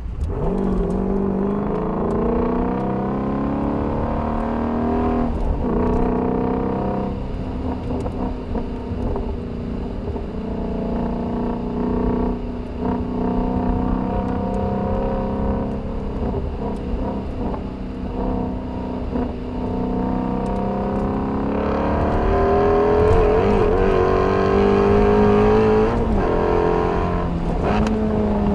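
A 2019 Shelby GT350's 5.2-litre flat-plane-crank V8 running as the car is driven hard, its pitch rising and falling through gear changes. It gets louder under harder acceleration about three-quarters of the way through.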